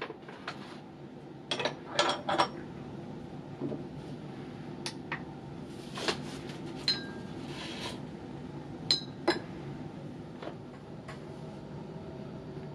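Sharp clicks and light clinks of lab handling on a bench: the red plastic cap going back onto the glass bottle of hydrochloric acid and the conductivity meter being switched on. The loudest clicks come in a quick cluster about two seconds in, with scattered single clicks after, over a steady low hum.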